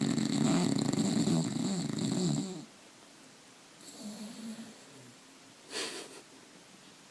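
Bulldog snoring: one long, loud snore lasting about two and a half seconds, a weaker snore about four seconds in, and a brief sharp sound near six seconds.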